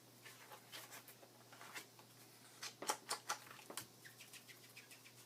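Faint handling of paper and small craft tools on a work surface: scattered light clicks and rustles, with a quick run of them about three seconds in.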